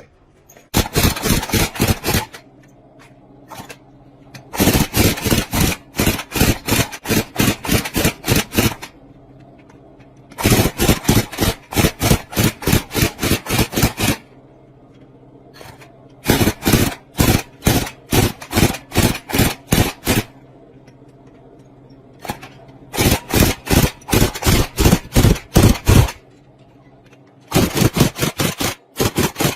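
Metal being worked by hand in quick repeated strokes, about five a second, in runs of a few seconds with short pauses between. A steady low hum runs underneath.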